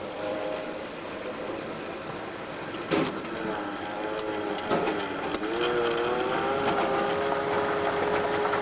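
Vehicle engine running while driving slowly on a dirt road, heard from inside the cab. Its pitch wavers, then rises a little over halfway through and holds steadier, with a couple of sharp knocks, one about three seconds in and one near five seconds.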